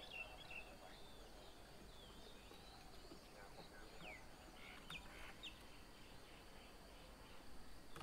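Faint bird calls and chirps in quiet open country: scattered short chirps, with a few quick downward-sweeping calls around the middle, and a faint steady high tone underneath.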